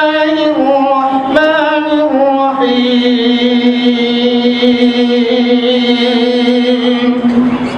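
A man chanting a Quranic recitation in a melodic voice: a few short phrases stepping down in pitch, then one long held note from about three seconds in until just before the end.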